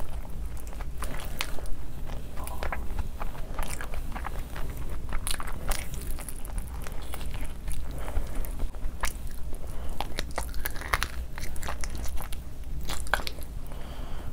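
A person biting into and chewing saucy fried chicken lollipops, with irregular crunches and mouth clicks.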